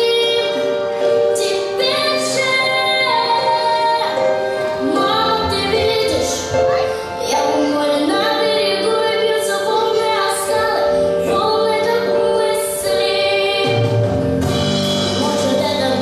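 A recorded song with a high female vocal singing over sustained instrumental chords; lower instruments come in near the end.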